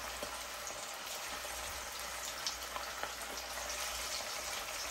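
Battered red snapper chunks deep-frying in a pot of hot oil: a steady sizzle with scattered crackles and pops.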